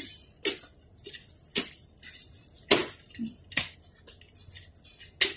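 A metal digging tool striking the ground in the garden bed: five sharp strikes about a second apart, the third the loudest.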